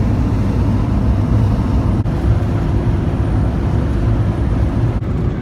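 Steady engine and road noise inside a moving van, with two brief clicks about two and five seconds in.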